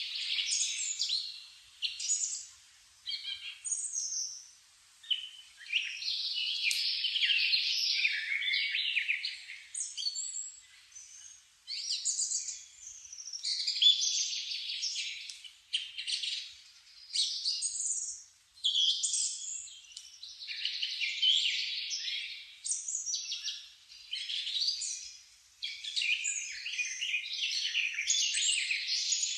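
Songbirds singing in quick, busy phrases a second or two long, with short pauses between them.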